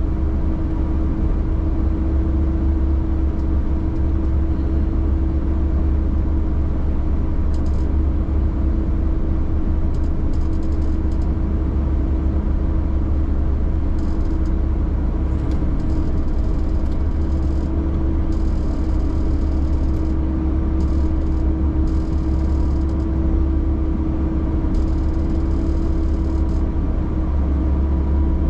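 Vehicle engine running steadily while travelling over a groomed snow trail: a constant low rumble with a steady hum above it.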